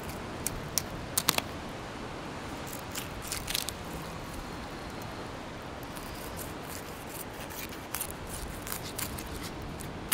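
Filleting knife cutting through a pink snapper's scales and rib bones, giving clusters of sharp crackling clicks, over a steady background hiss.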